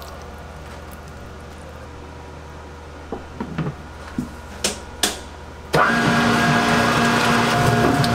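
Commercial spiral dough mixer: a low steady hum and a few knocks and clicks, then about two-thirds of the way through the motor comes on loud and runs with a steady whine as it kneads the dough.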